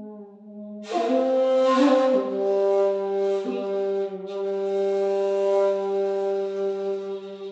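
Handmade 2.8 jinashi shakuhachi playing a honkyoku phrase: a soft low note, a breathy, loud attack about a second in, a quick change of note, then one long held tone that starts to fade near the end.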